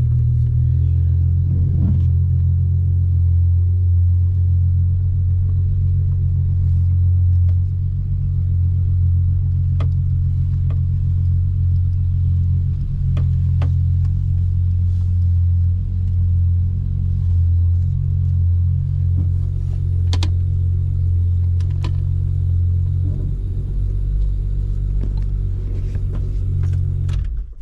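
Holden VY Commodore Calais engine running, heard from inside the cabin as the car is moved slowly on its automatic transmission: a steady low rumble with a few light clicks. It cuts off abruptly near the end as the engine is switched off.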